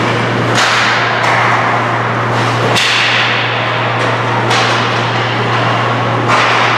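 Sharp cracks of hockey sticks and puck striking the ice and boards, about five of them, each ringing off with the rink's echo, over a steady low hum.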